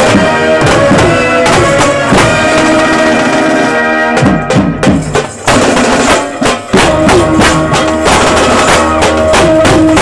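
Procession band music: several side drums beaten fast with sticks under a held melody line. Around the middle the melody drops out for a moment, leaving mostly drum strokes.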